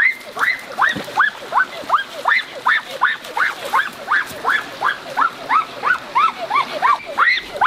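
Young crocodile giving a rapid series of chirping distress calls, about three a second, each call rising then falling in pitch.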